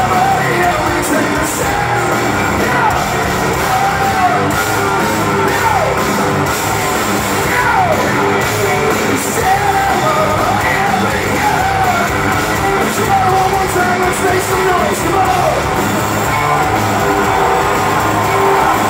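Rock band playing live in a large hall: drums, electric guitars and bass with a singer, the crowd singing along and yelling.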